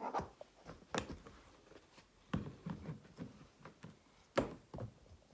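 Light taps and knocks of small plastic sand tools and shapes against a plastic play tray: a few sharp taps, the loudest about a second in and just past four seconds in, with softer handling noise between.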